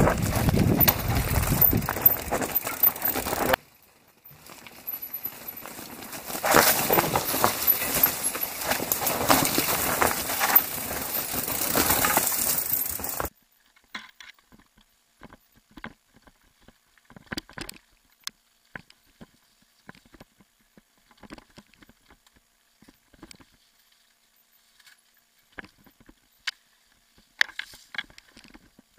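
Mountain bikes riding down a rocky trail: loud crunching and rattling of tyres and frames over stones, which cuts off abruptly about halfway through. After that come only faint, scattered knocks and rattles of a bike on a dirt path.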